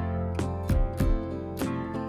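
Background music with a plucked guitar and a steady beat.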